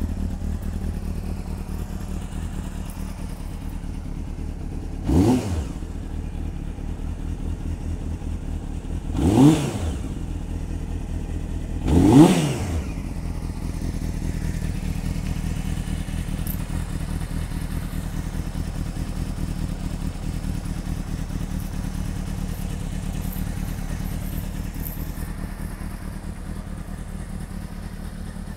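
1997 Honda CBR600F3's inline-four engine idling through an aftermarket silencer, choke now off. Three short throttle blips about five, nine and twelve seconds in, each rising and falling in pitch; the last is the loudest.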